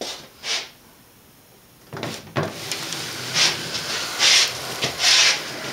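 A model steam engine on its wooden base being turned around by hand on a newspaper-covered bench: a knock about two seconds in, then repeated scraping and paper rustling about once a second as it is shifted around.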